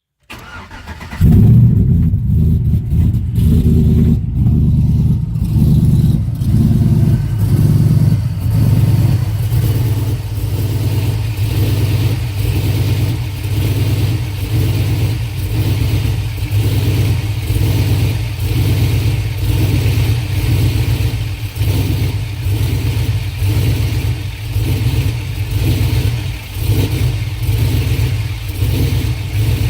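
A 5.3-litre V8 swapped into a vehicle, idling roughly with an uneven, misfiring beat. The engine comes in about a second in, and its level keeps surging and dipping. The owner ties the misfire to fuel pressure.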